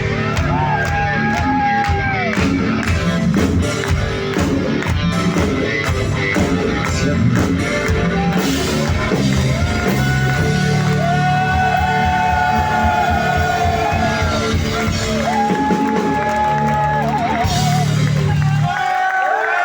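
Live rock band playing the end of a song: drums, bass and a held lead melody line with bends and vibrato. The band stops about a second before the end, leaving crowd noise.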